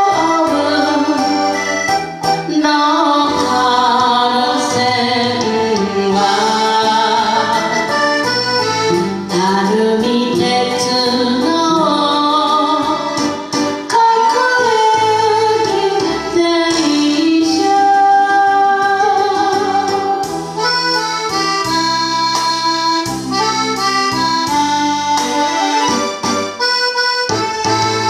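A song: a woman singing over a backing band in which an accordion carries the melody.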